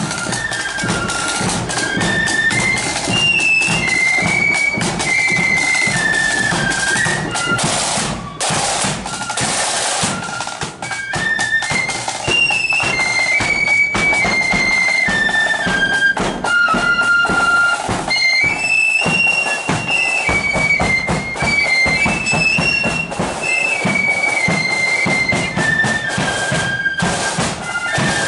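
Marching flute band playing a tune: a high flute melody over side drums and a bass drum beating the march.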